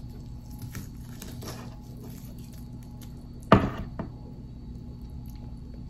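Barbecue-sauced pork ribs being pulled apart by hand and eaten close to the microphone, with soft handling noises. A sudden loud sharp sound comes about three and a half seconds in, and a smaller one half a second later.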